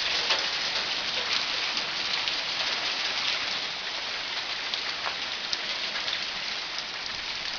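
Hailstones pelting down with rain: a dense steady patter with many short sharp ticks of pellets striking the ground and surfaces.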